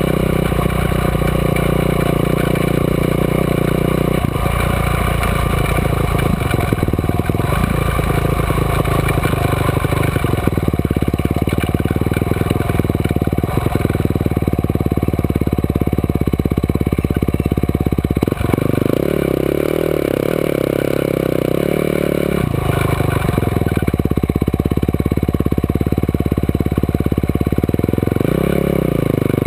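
Quad bike (ATV) engine running on the move, its note shifting up and down several times with the throttle, and a short rev that rises and falls near the end.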